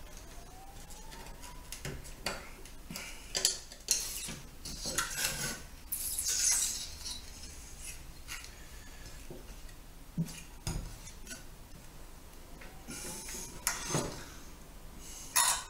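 Irregular clicks, scrapes and clinks of a metal pick tool working desoldered capacitors loose on a plasma TV power supply board. The board is then handled and turned over, giving a few sharper knocks and clatters, the loudest near the end.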